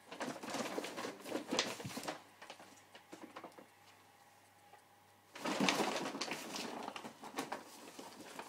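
Thin plastic shopping bags crinkling and rustling as a cat pounces on and burrows into them. The rustling comes in two spells of a couple of seconds each, with a quiet pause in the middle.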